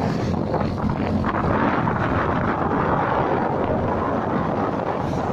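Wind rushing over the microphone of a moving motorcycle, mixed with engine and road noise, steady and without breaks.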